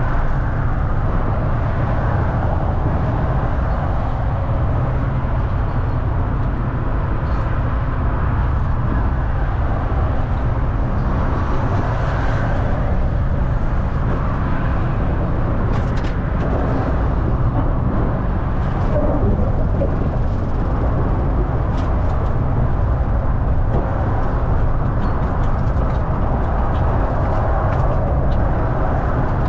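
Moving double-decker bus: a steady, loud low rumble of engine and road noise.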